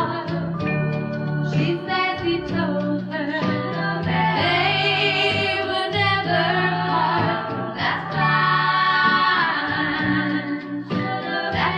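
A 1964 pop record: female voices singing a sustained, harmonised vocal line over a steady bass line.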